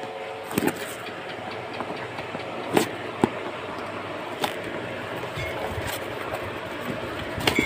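Cardboard parcel being torn open by hand: rustling and scraping of cardboard and packing tape, with a few sharp clicks, over a steady background noise.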